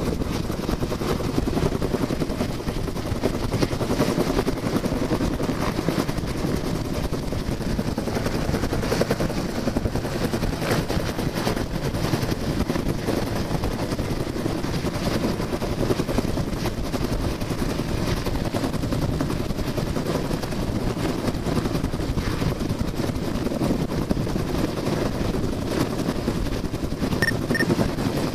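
Helicopter hovering overhead, its rotor beating steadily in a rapid, even pulse. Two short faint beeps sound near the end.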